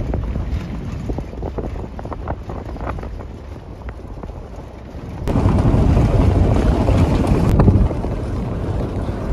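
Wind buffeting the microphone over the low rumble of a moving vehicle, with small rattles and knocks. About five seconds in the wind noise gets much louder for a couple of seconds, then eases.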